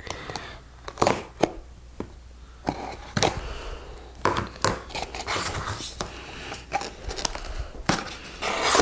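Cardboard box being cut open with a blade: irregular sharp clicks, taps and scrapes of the blade and cardboard.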